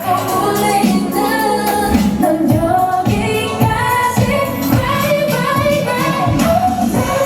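K-pop song with female group vocals over a steady beat, played loud through a stage PA.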